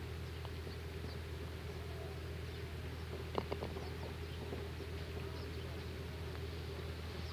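Steady low outdoor hum on the microphone with faint high chirps, and a quick cluster of three sharp clicks about three and a half seconds in.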